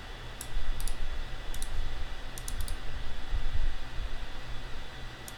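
Several sharp computer mouse clicks, scattered irregularly, as text is selected, copied and pasted through a right-click menu, over a low steady hum.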